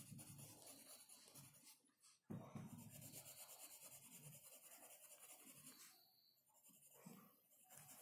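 Pencil lead scratching on paper in short drawing and shading strokes. It breaks off briefly about two seconds in and is fainter over the last two seconds.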